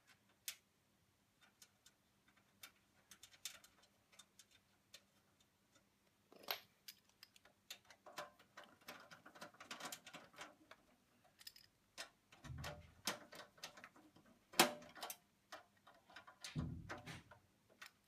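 Faint, irregular small clicks, ticks and scrapes of screws being turned into a computer's sheet-metal hard-drive cage, with two dull knocks in the second half.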